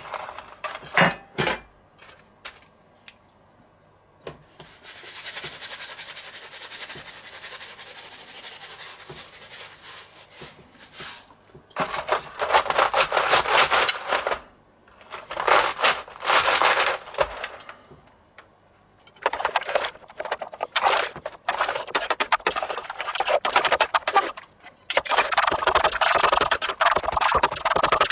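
Metal ice-cream spatulas scraping and chopping cream mixture across a chilled stainless steel pan in quick repeated strokes, busiest in the last third. The mixture is starting to set but is not yet frozen through. Before the scraping starts there are a few clicks and several seconds of steady hiss.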